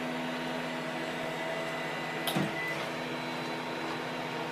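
Creality CR-10 3D printer's stepper motors humming steadily as the machine travels back to its home position, with a short sharp click just past two seconds in.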